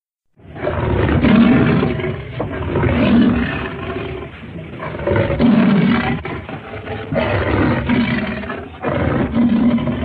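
Wolfman monster sound effect: rough, growling roars that swell and fade about five times, starting about half a second in.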